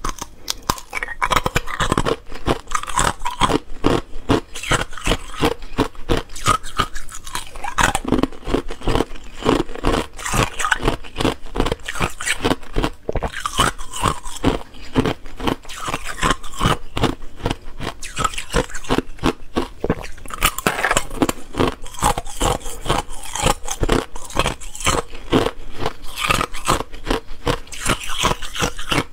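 Clear ice cubes bitten and chewed close to the microphone: a fast, continuous run of sharp cracks and crunches. Now and then cubes clink and scrape in a plastic tub as more are picked out.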